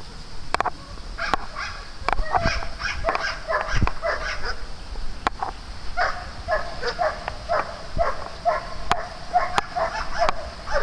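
Dog barking in play, short high yips in quick runs, several a second, starting about two seconds in, with a few sharp clicks among them.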